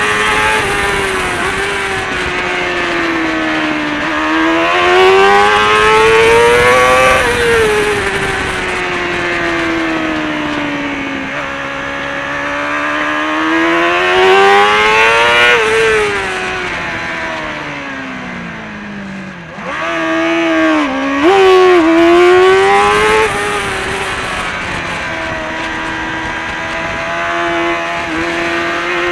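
Kawasaki ZXR400 race bike's inline-four engine at full race pace, heard onboard: the revs climb hard out of corners and drop away under braking, three times over, with a sharp dip and quick pick-up about two-thirds through, then holding fairly steady near the end.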